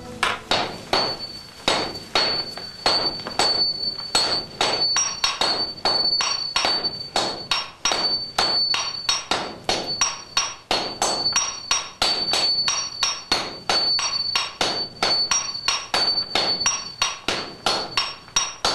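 Sledgehammers striking a red-hot steel block on an anvil in a fast, steady rhythm, each blow ringing with a metallic note: hand forging of sword steel by the smith and his strikers.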